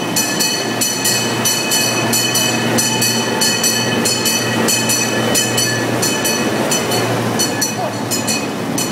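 Small park train running with its open passenger cars: a steady engine hum under rapid, irregular rattling of the cars as they ride along.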